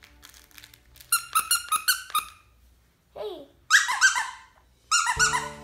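Squeaky plush dog toy squeezed over and over, giving three quick runs of high-pitched squeaks.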